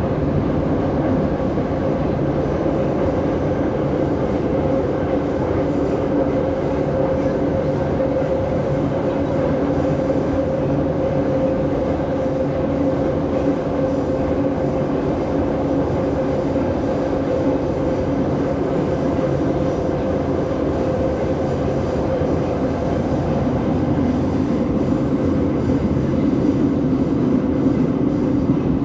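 Moscow metro train of 81-717.5A/714.5A cars running through a tunnel, heard from inside the passenger car. A steady rumble of wheels on rail carries a hum at a fixed pitch, and it grows a little louder near the end.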